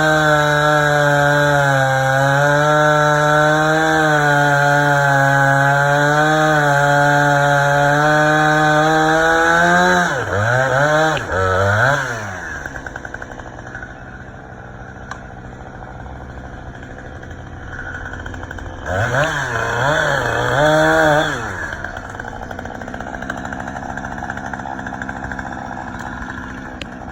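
Gas chainsaw running at high revs, its pitch sagging and recovering slightly for about ten seconds, then blipped up and down a few times before dropping to idle. About halfway through it is revved in quick bursts again and then settles back to idle.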